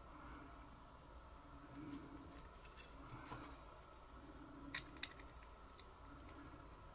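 Faint, sparse clicks of small metal hand tools on a brass butane lighter filler valve being worked on, with two sharper clicks close together about five seconds in.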